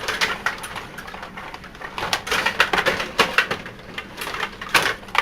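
Stiga table hockey game in play: plastic players and rods clacking and rattling, with quick irregular knocks of the puck being struck, in uneven bursts.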